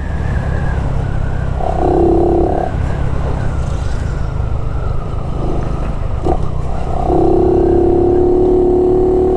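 Honda Biz 125's single-cylinder engine and exhaust running at a steady cruise of about 45–50 km/h, over a dense low rumble of wind on the onboard microphone. Its note turns steadier and slightly louder about seven seconds in.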